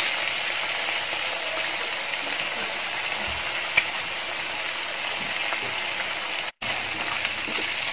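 Corn-flour and rice-flour battered chicken pieces deep-frying in hot oil: a steady sizzle. It cuts out for a split second about six and a half seconds in.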